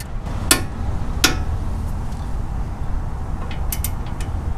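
Torque wrench on a ball joint castle nut clicking sharply twice, about half a second in and again under a second later, as it reaches the set 105 ft-lb; a few faint light ticks follow near the end, over a steady low rumble.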